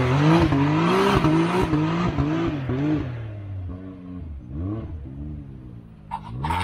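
UTV engine revving up and down in quick pulses of throttle. It eases off and gets quieter after about three seconds, and a brief clatter comes near the end.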